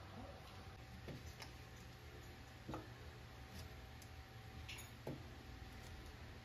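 Faint, scattered ticks and small pops, about one every second, from a stainless steel frying pan heating on a gas burner as butter cubes start to melt in it, over a steady low hum.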